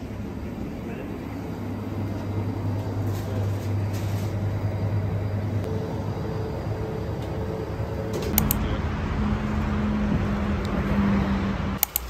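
Low, steady hum of a vehicle engine with street traffic. About eight seconds in, sharp clicks mark a change to a louder, noisier hum, and more clicks come near the end.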